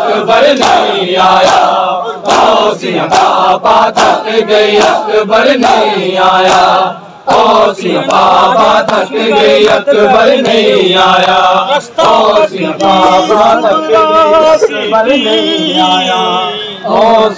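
A crowd of men chanting a noha, a Shia lament, together, with the sharp slaps of matam (chest-beating) sounding through the singing.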